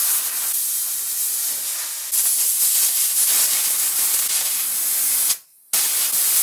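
Compressed-air blow gun hissing steadily as it blasts air into the small drilled holes of a wooden bench seat to clear packed-in dirt. The hiss grows louder about two seconds in, stops for a moment near the end, then starts again.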